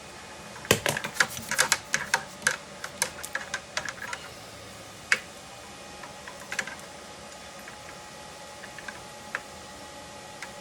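Light, sharp clicks and taps of small hard objects: a quick irregular run of them for about three seconds, then a few scattered clicks.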